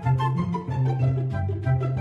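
Instrumental background music: a low bass line stepping between notes under short, evenly spaced higher notes.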